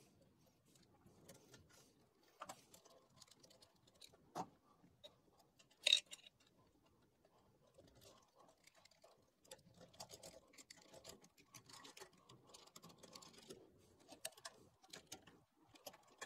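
Faint small metallic clicks and scrapes of bolts and spacers being handled and screwed in as a stepper motor is fastened to an aluminium gantry plate. There is a sharp click about four seconds in, a louder one about six seconds in, and the clicking grows busier in the second half.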